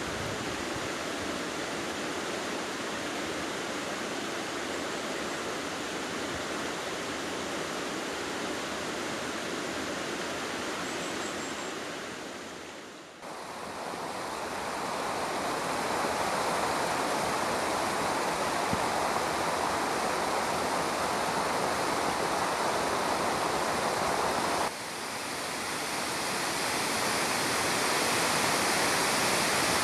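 Rushing water: a stream, then water pouring over a small weir, a steady even rush. It fades down about 13 seconds in and returns louder, with a brief drop about 25 seconds in.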